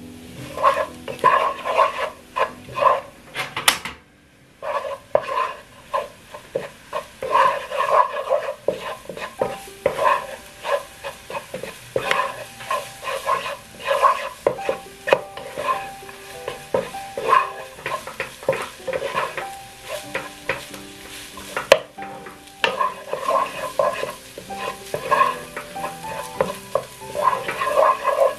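Wooden spatula stir-frying rice in a nonstick pan: quick scraping strokes about two a second over a steady sizzle, with a brief pause about four seconds in.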